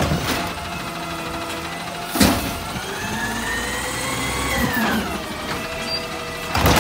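CNG Peterbilt 520 garbage truck with a McNeilus ZR side-loader body running as it creeps forward. A whine rises and then falls in the middle. There is a sharp clank about two seconds in and another loud burst of noise near the end.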